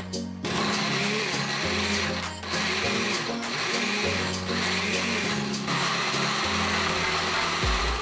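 Countertop blender with a glass jar running steadily, puréeing shallots, garlic, candlenuts and spices in oil into a smooth liquid paste; the churning noise swells and dips every second or so.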